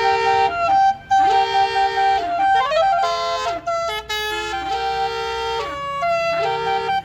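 Bus's Basuri multi-note 'telolet' horn playing a tune. Several horn notes sound together as chords and change every second or so. A few notes slide up in pitch near the middle, and the tune breaks off briefly about a second in and again about four seconds in.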